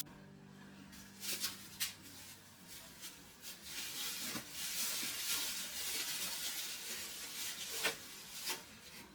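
Items being handled: rustling and rubbing of packaging or containers, with a few light knocks.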